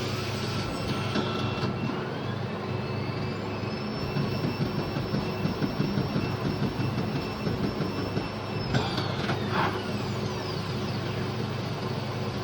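CNC PCB drilling machine running: a high-pitched spindle whine rises about a second in, holds steady, and falls away near the ten-second mark, over a constant low machine hum.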